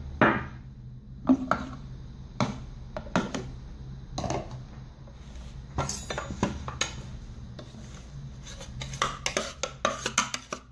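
Plastic food-processor bowl and kitchen utensils being handled: scattered knocks and clinks, with a quicker run of small taps near the end, over a low steady hum.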